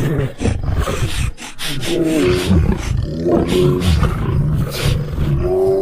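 Polar bear roar sound effects: a string of deep, rough growling roars with several louder pitched roars that swell and fall, one about two seconds in, one past three seconds and one near the end.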